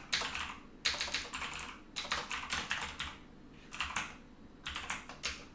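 Typing on a computer keyboard: quick runs of key clicks with short pauses between them as a shell command is entered.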